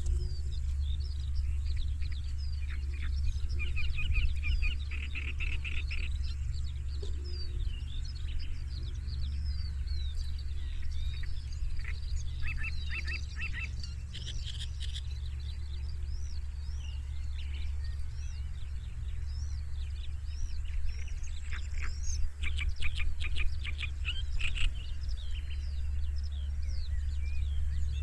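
Several songbirds chirping and trilling, with quick repeated trills now and then, over a steady low hum.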